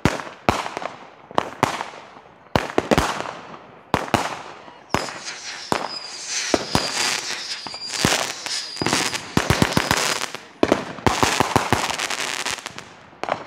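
Consumer fireworks going off close by: a string of sharp bangs with echoing tails, a high whistle held for several seconds in the middle, and a quick run of crackling near the end.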